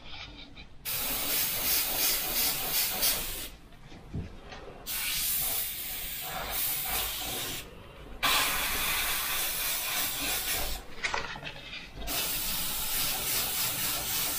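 Mr Hobby airbrush spraying in four bursts of hiss, each two to three seconds long, with short pauses between them as the trigger is pressed and released.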